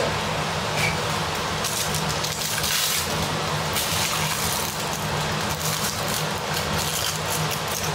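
Chicken fillets frying in hot oil in a pan: a steady sizzle with fine crackling, over a steady low hum.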